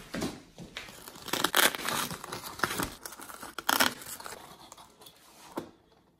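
Hook-and-loop (Velcro) straps being peeled apart, with the light-box lining crinkling as the LED strips are handled: a few short, irregular rasping tears and rustles that die away shortly before the end.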